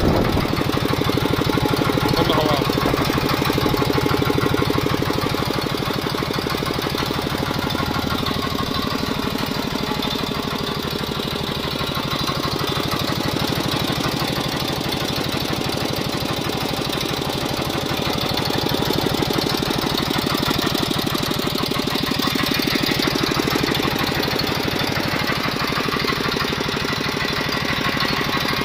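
Homemade air compressor running steadily: an electric motor belt-driving a single-cylinder piston pump, with a fast, even knocking beat.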